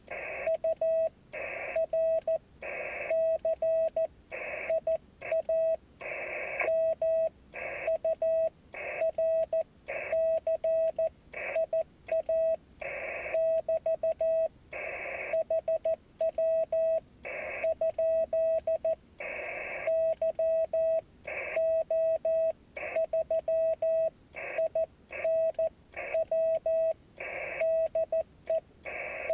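Slow Morse code from a Yaesu FT-817D transceiver: a single steady tone of about 600 Hz keyed in short and long dots and dashes. Bursts of hiss come along with some of the longer tones.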